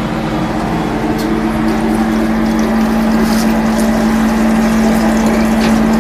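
Steady machine hum, held at one low pitch over a constant rushing noise, with a couple of faint clicks.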